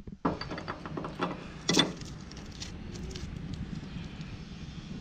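Crinkling and rustling of a thin blue plastic wrapper being handled, with many small clicks and one sharper snap just under two seconds in.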